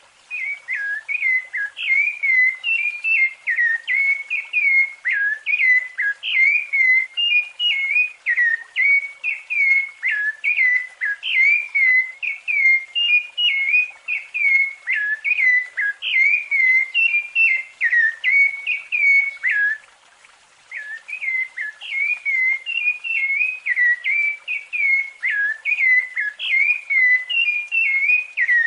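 Rufous-bellied thrush (sabiá-laranjeira) singing its fluted song: a continuous string of short, clear whistled phrases, with a brief pause about two-thirds of the way through.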